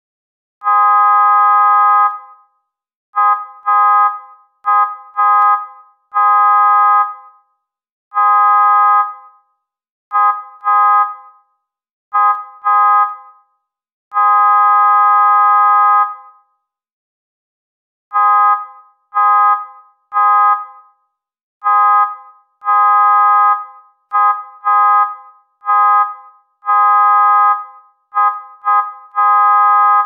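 Car horn honking in a series of blasts, mixing long honks of one to two seconds with quick double taps, with a pause of about two seconds in the middle.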